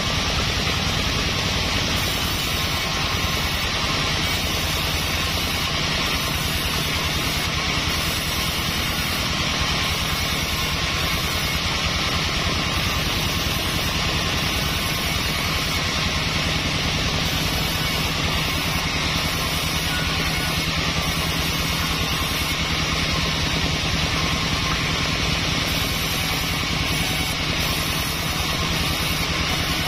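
Large sawmill band saw running and cutting sonokeling (Indonesian rosewood) beams into boards: a loud, steady, unbroken machine noise with a low hum underneath.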